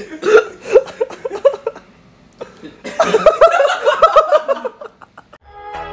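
A man laughing in two bouts of short, rhythmic bursts, the second, about three seconds in, louder than the first.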